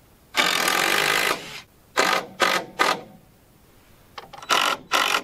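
Power drill driving 3.5-inch screws through a board into a wall, its motor whining: one run of about a second, then three short trigger bursts, then another run near the end.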